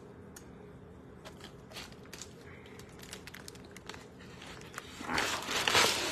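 Plastic fork shredding cooked chicken: scattered light clicks and taps, then about five seconds in a loud scraping noise lasting about a second.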